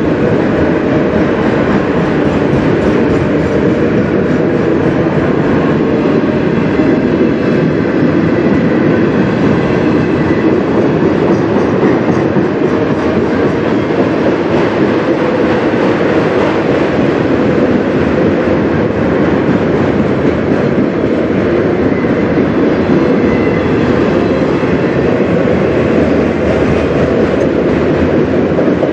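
Autorack freight cars rolling past at close range: a loud, steady rumble and rattle of steel wheels on rail and the cars' steel bodies, unbroken throughout.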